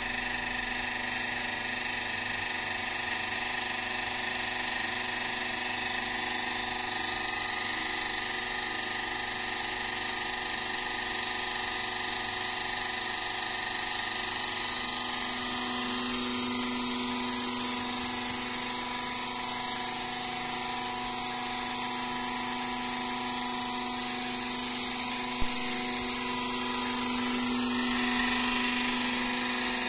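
Hydraulic power pack of a steel plate flipping machine, an electric motor driving the pump, running with a steady whine while the hydraulic arms lift the turnover frames. A single click comes a few seconds before the end.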